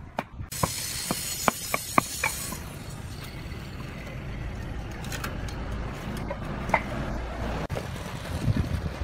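Concrete paving blocks clacking against one another as they are set by hand, a quick run of sharp clacks in the first couple of seconds and a few single ones later. A steady low rumble runs underneath.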